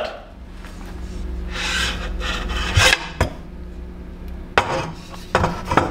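Rubbing and rustling of parts being handled, with several sharp clicks and knocks, as the aluminium gantry of a 3020 desktop CNC router is lifted and set on its base. A steady low hum runs underneath.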